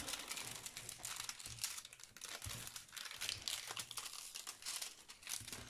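Clear plastic protective film on a diamond painting canvas crinkling as a hand smooths it flat, a run of many small irregular crackles.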